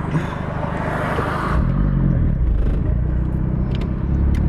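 Car engine idling, heard from inside the cabin, with traffic around it. About a second and a half in, a high hiss drops away and a louder low rumble with a wavering pitch takes over.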